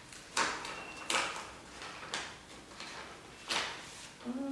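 Paper envelope being opened by hand, with four short rustles.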